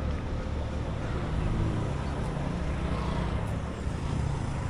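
Steady low rumble and hiss of road traffic, the hum of passing and idling vehicle engines.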